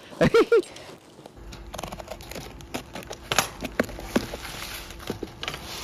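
Cardboard shipping box being torn open by hand, its packing tape and cardboard ripping and crackling in irregular snaps and rustles.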